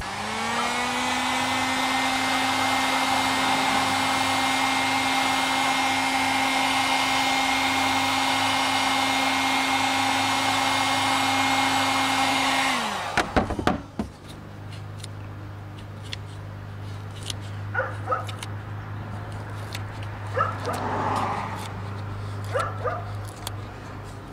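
Heat gun running steadily: its fan spins up at the start and winds down about 13 seconds in, while it warms the old double-sided adhesive tape on a plastic roof rail piece to soften it for removal. After it stops come a few clicks, then short scraping and peeling sounds as the tape is worked off.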